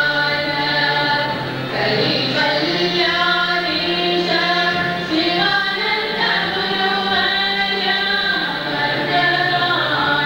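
Women singing a devotional welcome song in unison, accompanied by harmonium, with a steady low drone under the melody, and tabla.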